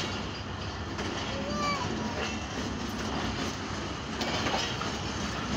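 Pakistan Railways passenger coaches rolling along the track: a steady rumble of wheels on rails with some clatter, heard from the side of the moving train.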